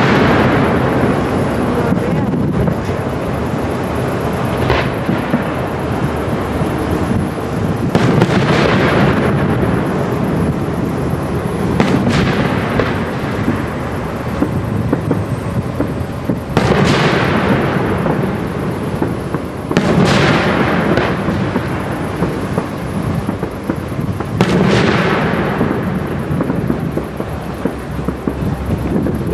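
Aerial firework shells bursting during a professional fireworks display: about six heavy bangs a few seconds apart, each followed by a long echoing rumble that dies away.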